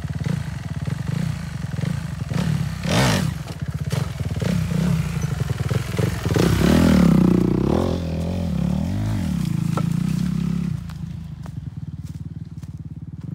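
Dirt bike engine running and being revved under load as the bike climbs a pallet ramp onto a log, the revs rising and falling several times, loudest about seven seconds in. It drops to a lower, steadier note near the end as the bike rides off.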